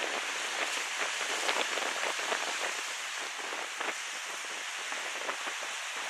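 Sea water washing and fizzing among volcanic rocks: a steady hiss dotted with many small crackling splashes.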